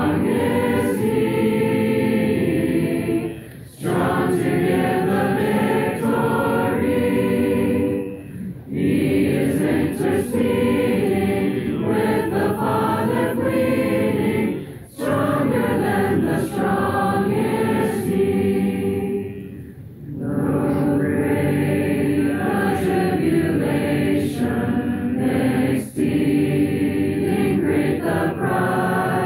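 Large congregation singing a hymn unaccompanied, many voices together, with short breaks between lines, about four times.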